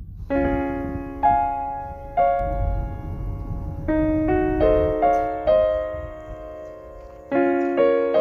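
Background music: a slow, gentle piano melody of struck notes and chords, each note ringing and fading.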